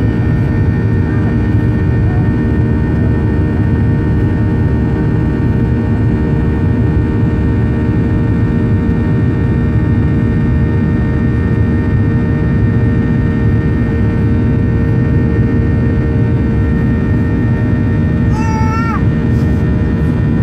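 Steady cabin noise of a Boeing 737-800 climbing after takeoff, heard beside the wing: the CFM56-7B turbofan's deep rush with steady fan tones running through it. Near the end a brief high-pitched voice rises over it.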